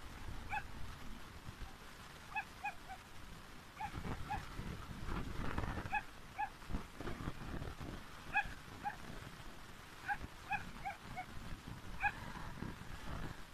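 Small dog whimpering in short, high whines, singly or in quick runs of two to four, every second or two.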